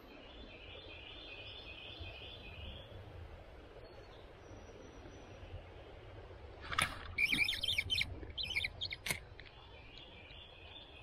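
Songbirds singing in the woods: a repeated trilled phrase near the start and again near the end. About seven seconds in comes a louder, choppy burst of sound with two sharp clicks.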